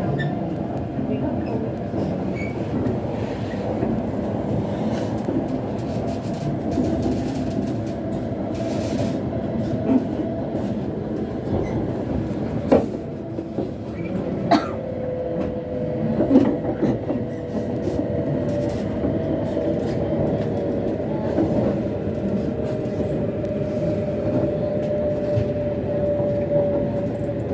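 Running noise heard inside a Joetsu Shinkansen car: a steady rumble with a few sharp clicks. A steady hum comes in about halfway. A passenger nearby clears their throat.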